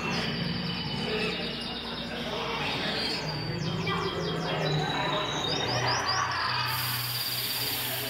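Recorded canary chirps and twittering trills played through speakers as a canary transformation spell effect, over a low sustained musical bed. A run of quick falling chirps comes about halfway, rapid trills follow, and a bright hissing shimmer begins near the end.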